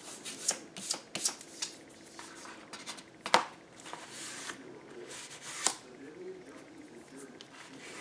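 Bone folder rubbing and pressing along folded cardstock, with paper rustling and scattered sharp taps and clicks, the loudest about three and a half seconds in.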